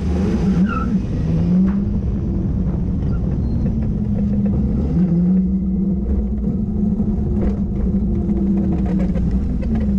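An engine at low revs, its note rising and falling with the throttle over a steady low rumble. An Opel rally car passes close by near the start.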